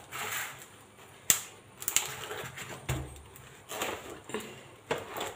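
Kitchen knife cutting through a small unripe jackfruit, crunching through the tough rind with several sharp cracks and snaps as the blade is worked down into the fruit.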